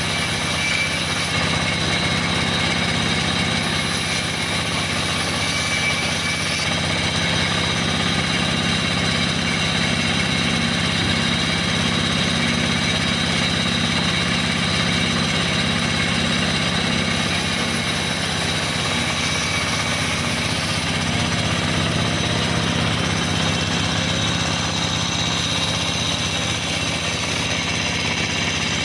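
Steady running of the engine-driven vertical band saw while planks are fed through the blade: an even mechanical drone that does not change.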